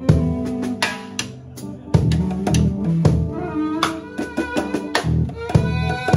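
Live funk band playing an improvised groove: drum kit hits over an electric bass line, with guitar and electric violin lines on top.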